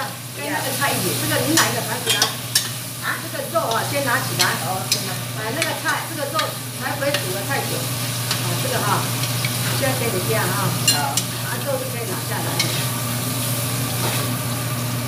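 Metal spatula stirring food in a wok over a gas flame, with repeated sharp clacks and scrapes of the spatula against the pan over a continuous sizzle of frying.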